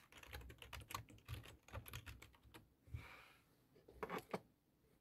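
Faint clicking of typing on a keyboard, in quick runs of keystrokes with a short pause in the middle and another few keystrokes about four seconds in.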